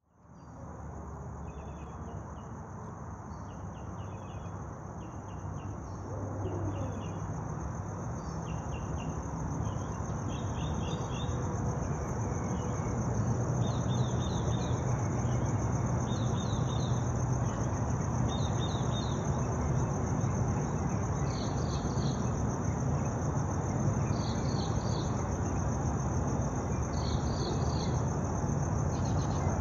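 Night insect chorus: crickets keep up a continuous high-pitched trill, while a short pulsed chirping call repeats about every second and a half, over a steady low hum. The sound fades in over the first several seconds.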